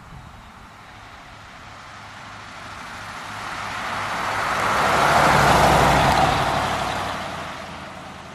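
1956 Mercury Montclair convertible with its 312 cubic-inch V8 driving past. The engine hum and tyre noise grow steadily louder to a peak about five and a half seconds in, then fade away.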